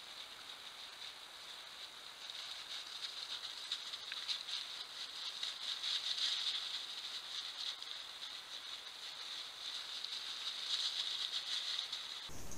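Wild boars feeding in grass close by: a continuous fine crackling and rustling of rooting and chewing, growing louder around the middle as the animals come nearer.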